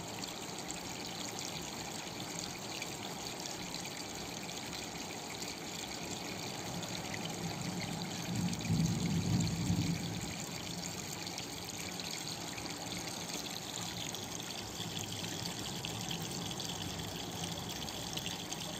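Steady background hiss, with a low rumble that swells and fades about nine seconds in.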